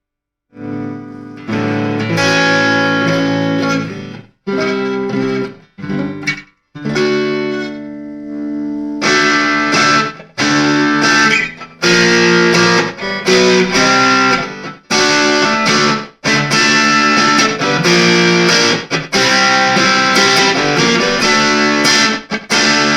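Electric guitar with a newly fitted nut and freshly set action, played through a small practice amp as a first sound check: chords and riffs, each phrase left to ring, with short breaks between them. The tone has some overdrive on it rather than a clean sound.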